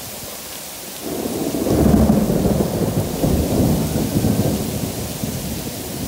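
A long rumble of thunder that swells about a second in, is loudest a second later and slowly fades, over steady heavy rain.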